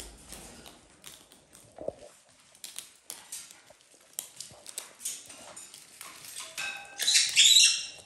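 Macaws eating seed mix from a metal tray: scattered clicks and crunches of beaks cracking seeds and tapping the tray. Near the end a loud, short cry holding a steady pitch.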